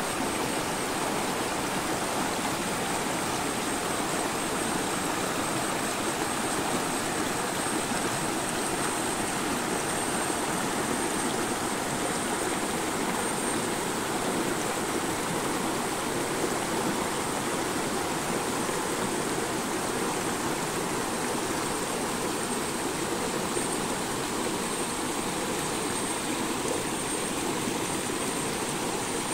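Shallow rocky stream rushing and splashing over boulders: a steady, unbroken water noise, with a thin steady high-pitched tone above it.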